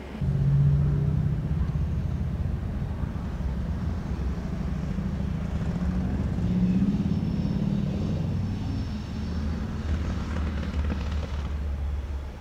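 Diesel rail vehicle's engine running: a deep, steady drone that starts abruptly, its pitch climbing a little around the middle before settling.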